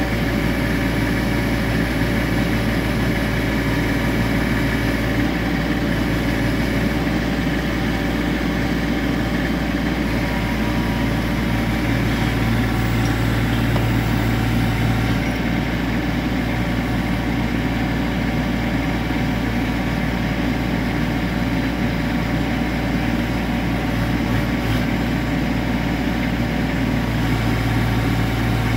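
Kubota U25 mini excavator's diesel engine running steadily. Its low hum grows stronger for a few seconds about halfway and again near the end.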